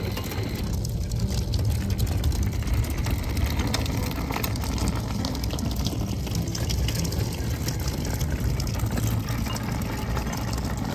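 Sea water splashing and lapping with many small splashes over a steady low rumble. The surface is churning with a shoal of Japanese anchovy.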